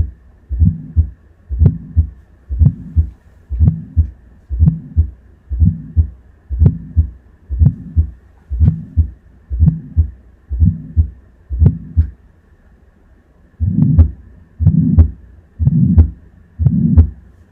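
Simulated heart sounds of aortic stenosis from an auscultation simulator: a regular heartbeat of about one beat a second, each beat carrying a rough, loud systolic murmur between the first and second heart sounds. The beats stop for about a second and a half about two-thirds of the way through, then come back louder.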